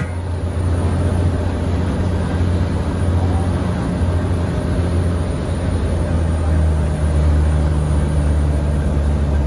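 Cirrus SR22's six-cylinder piston engine and propeller droning steadily, heard from inside the cabin as the plane lands and rolls down the runway. The engine note steps slightly lower about two-thirds of the way through.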